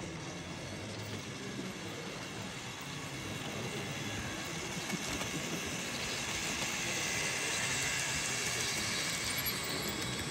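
Model train running on the layout's track: the steady rattle and hum of a freight train of loaded hopper wagons rolling past, growing louder about halfway through as the wagons come close.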